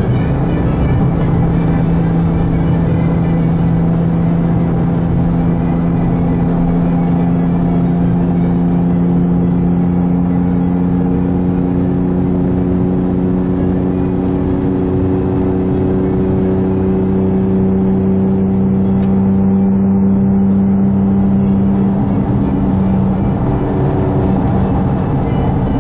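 Sports car engine running as a steady drone, its pitch creeping slowly upward for most of the stretch, then dropping near the end.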